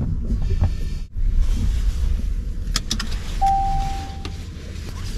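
Car cabin sounds: a low steady rumble, then a few sharp clicks as the driver's seat belt is unbuckled, and a single steady electronic beep about a second long.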